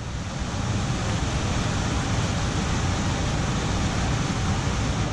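Steady rush of water pumped up the sloped surface of a FlowRider surf simulator, forming its standing wave.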